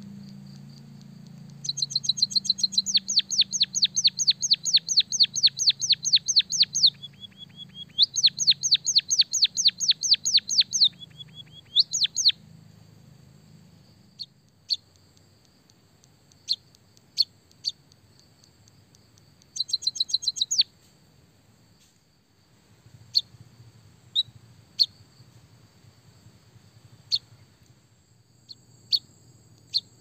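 White-headed munia chirping: two long runs of rapid, sharp chirps, about six a second, in the first half, then a short burst a little later and scattered single chirps. A steady high-pitched buzz runs underneath throughout.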